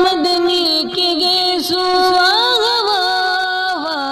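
Naat singing: a high voice holds and bends long wordless notes over a steady sustained drone.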